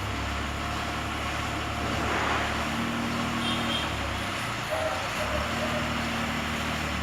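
Steady engine rumble of a heavy motor vehicle or machine running, with a few faint short tones above it about halfway through.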